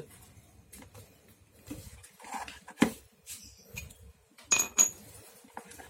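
Steel sockets and hand tools clinking and clicking as they are handled and knocked against each other and the metal case, with a knock near the middle and two sharp, briefly ringing metallic clinks about three quarters of the way in.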